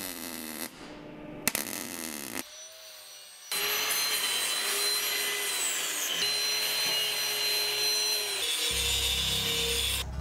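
Metal fabrication on steel exhaust header tubes in short cuts. A wire-feed welder's arc crackles near the start. Then, for about five seconds, an angle grinder grinds the tubes with a loud, steady whine. A lower rumble follows near the end.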